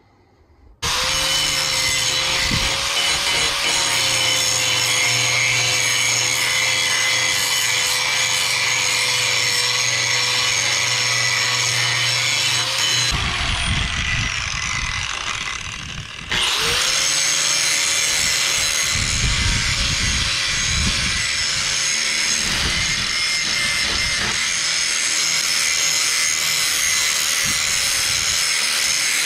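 Angle grinder grinding the edges of steel pieces, cleaning off mill scale and rust to prepare them for welding. It starts abruptly about a second in with a steady whine. About halfway through it winds down, then starts again some three seconds later and grinds on.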